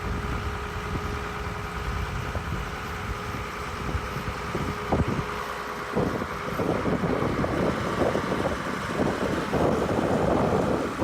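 Diesel engine of a 1996 Badger 1085C Cruz-Air excavator running steadily, with a faint steady whine. About six seconds in, a louder, rougher noise joins it.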